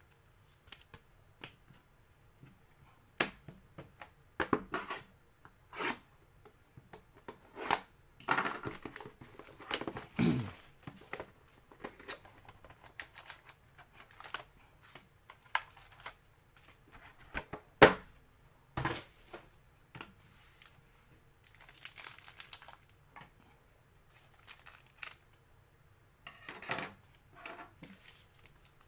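Trading-card pack wrappers being torn open and crinkled, with scattered taps and clicks as cards and packaging are handled; one sharp click stands out about 18 seconds in.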